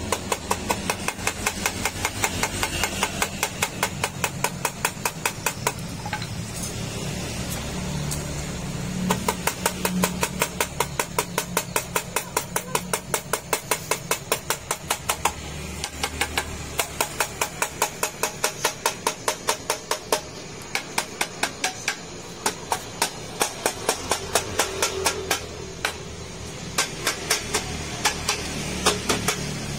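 Rapid tapping on a radiator's brass upper tank with a wire brush, about four knocks a second in spells with short pauses, while the tank's solder seam is heated to loosen it. Underneath runs the steady hiss of a cartridge butane torch flame.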